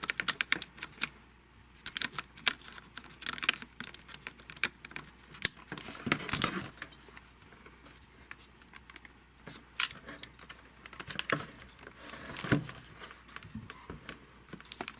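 Irregular plastic clicks, taps and rattles from handling a Panasonic HC-WXF1 camcorder and its battery as the battery is fitted and the camera switched on.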